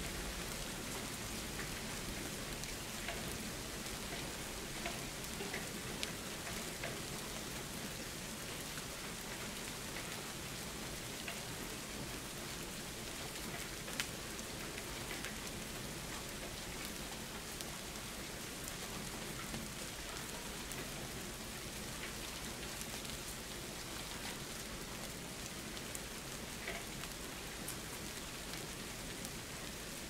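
Steady rain falling: an even hiss with scattered single drops ticking sharply, one a little louder about fourteen seconds in.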